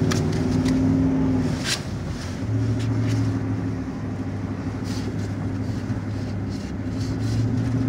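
Four-wheel-drive truck's engine running under load in the cab while it drives through snow, its note dropping away briefly about two seconds in before it picks up again. A few short knocks from the truck going over rough ground.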